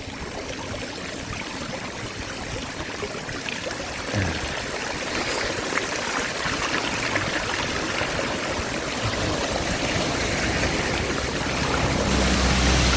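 Floodwater rushing and sloshing as someone moves through a flooded road, slowly growing louder, with a low rumble joining near the end.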